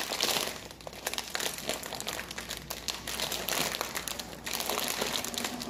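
Shiny foil snack bag crinkling and crackling as both hands pull and twist at its sealed top, trying to tear it open; the bag is tough and does not give.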